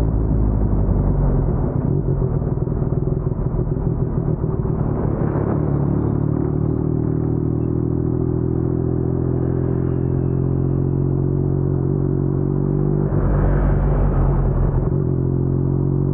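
Yamaha MT-09's crossplane three-cylinder engine running through an Akrapovic carbon full-system exhaust, holding steady low revs. About thirteen seconds in there is a louder, rougher stretch that lasts a couple of seconds.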